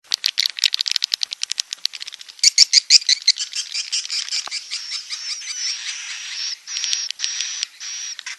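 Recorded edible-nest swiftlet calls played as a lure sound: a fast run of high clicking chirps, about ten a second, turning into a dense high twittering, with a few short held high notes near the end. This is a swiftlet calling track of the kind played to draw swiftlets into a nesting house.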